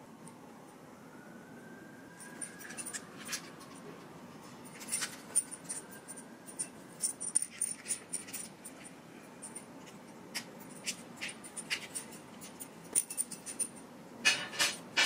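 Small light clicks and tinkles of a beaded phone charm with metal fittings and a plastic phone case being handled, with a burst of jingling near the end.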